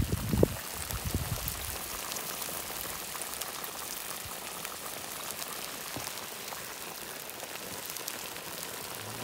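Vegetables sizzling and steaming in a hot cast-iron kazan: a steady crackling hiss. A few low thumps come in the first half-second.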